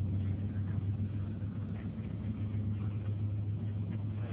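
Steady low drone of a moving bus's engine and tyres, heard from inside the cabin.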